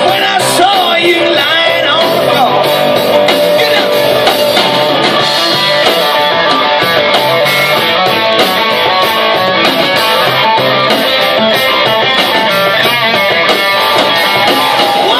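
Live band playing loud, amplified rock music through a PA: electric guitar with a lead singer.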